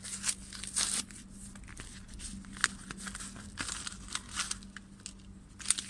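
Plastic packaging crinkling and being torn in irregular rustles as small parts are unwrapped, over a faint steady hum.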